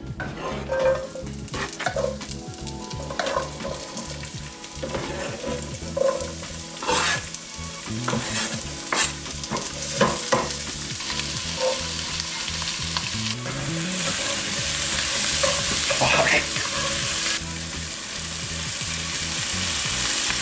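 Diced zucchini and onion sizzling as they fry in hot olive oil, with a spatula scraping and knocking against the pan as they are stirred. The sizzle grows steadier and louder in the second half.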